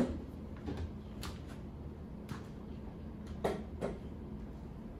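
A handful of light clicks and knocks at irregular intervals over a steady low hum of room noise. The loudest comes right at the start.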